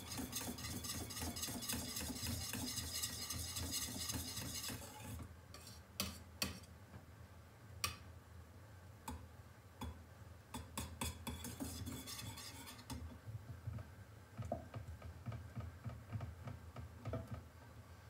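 A utensil stirring a pot of thickening semolina milk pudding, scraping and clicking against the pot: quick continuous stirring for about the first five seconds, then scattered knocks and scrapes.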